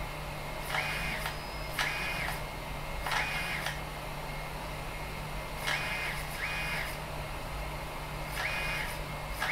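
BIQU Delta 3D printer's touchscreen beeping each time its Increase button is pressed on the extruder (E axis) move menu: about six short beeps at uneven intervals, over a low steady hum.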